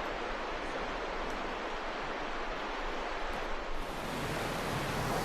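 Steady rushing of flowing river water, turning brighter and fuller a little past halfway through.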